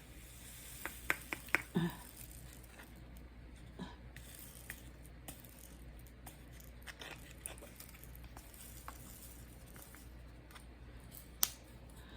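Faint, scattered clicks and taps of small hand handling at a craft canvas, with a quick cluster of louder ticks about a second in and a sharp one near the end.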